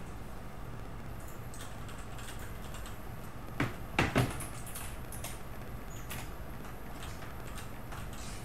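Light scratching and tapping from colouring on paper at a desk, over a steady low hum, with a quick run of three louder knocks a little before the middle.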